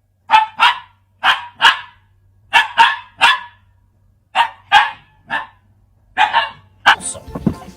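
A dog barking repeatedly: about a dozen short, sharp barks in quick groups of two or three, with brief pauses between the groups.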